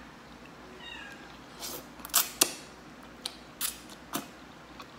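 Rice noodles slurped and chewed up close, a run of loud wet slurps and smacks through the middle, sharpest about two seconds in. A cat meows once with a short falling cry about a second in.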